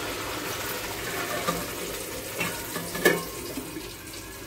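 Wet masala paste sizzling and spattering as it hits hot oil in a metal kadhai, the sizzle dying down toward the end. A sharp metallic clank about three seconds in as a steel plate is set over the kadhai as a lid.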